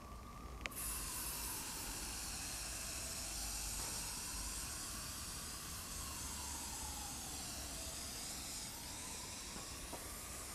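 Aerosol spray can hissing in one long steady spray against the back of a stretched canvas, starting with a click of the nozzle just under a second in.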